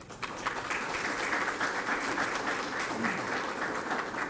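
Small seated audience applauding, steady clapping that starts just after the beginning and carries on through.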